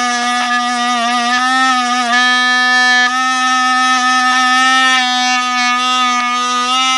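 Parkside 12 V cordless rotary tool running with a wire brush attachment on plastic, giving a steady whine. Its pitch wavers and dips briefly about a second in as the brush is pressed into the work.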